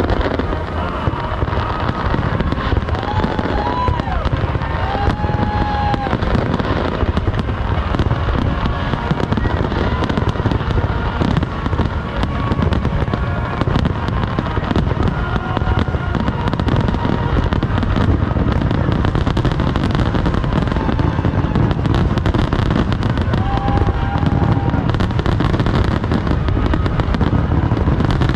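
Large fireworks display: a dense, continuous barrage of booming bursts and crackling reports with no let-up.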